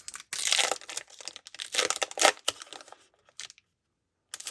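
Foil booster-pack wrapper being torn open and crinkled. Two loud bursts of crinkling come in the first half, then a few light crackles, and a brief pause.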